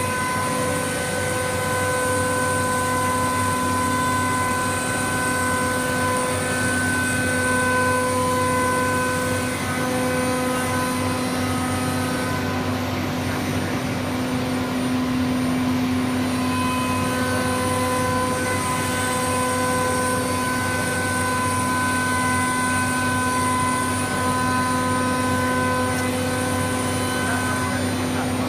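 COSMEC FOX CNC nesting centre running: a steady industrial machine drone with several high whining tones that fade out partway through and come back later.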